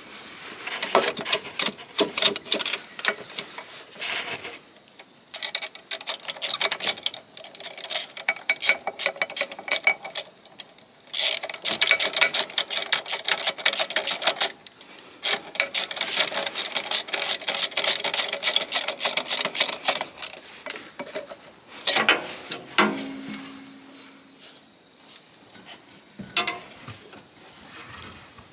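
Ratchet spanner with a 7/16 socket doing up a V-clamp: long runs of rapid clicking with short breaks, stopping about three-quarters of the way through and followed by a few scattered knocks.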